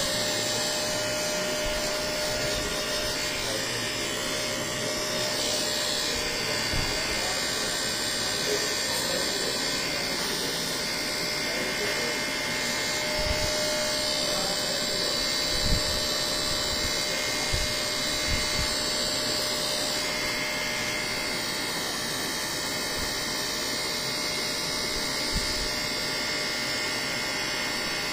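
Handheld electric vibration massager running steadily while pressed against a patient's chest for chest vibration physiotherapy, with a few soft bumps as it is moved.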